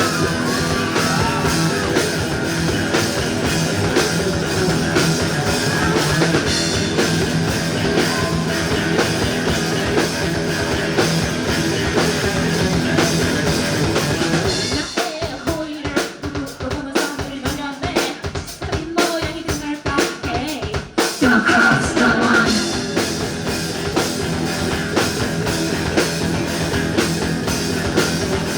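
Rock band playing live, with guitars, bass and a drum kit. About halfway through the music drops to a sparse stop-start break of separate hits, and the full band comes back in about six seconds later.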